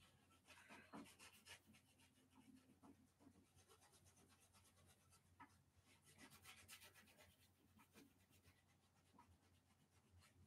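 Very faint, scratchy rubbing strokes of a paintbrush working acrylic paint on a canvas, in clusters about a second in and again around six seconds in, over a low steady hum.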